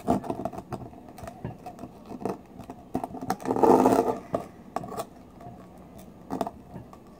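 Serrated kitchen knife clicking and scraping against the edge of a large pearl oyster's shell as it is pried at, with a louder, longer scrape about three and a half seconds in.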